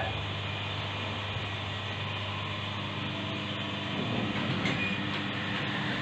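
Passenger lift car travelling with a steady mechanical hum and rumble as it reaches its floor. A faint higher tone and a few clicks come about five seconds in.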